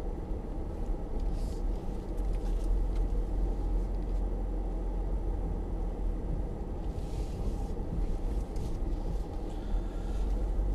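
Cabin noise of a Mercedes-Benz GL-Class SUV driving over a rough dirt off-road track: a steady low rumble of engine and tyres, with a few faint knocks and rattles.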